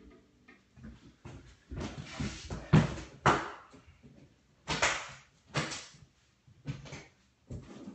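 A series of short knocks, bumps and handling noises, about six separate sounds spread over several seconds, as a guitar is fetched off-camera.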